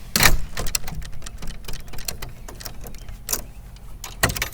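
Power drill driving a screw through a strike plate into a wooden gate. A loud burst comes just after the start, then a run of irregular clicks and knocks, with two more short bursts near the end.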